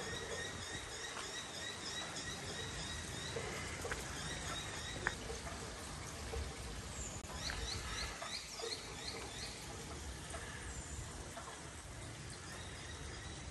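Small birds chirping in quick runs of short, squeaky notes, in two bouts, over a steady wash of water noise, with a few sharp clicks.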